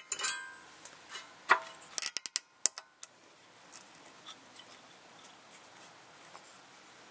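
A few short, sharp metallic clicks and taps in the first three seconds as a spring-steel brake pad clip is pressed and snapped into a rusty rear brake caliper mounting bracket.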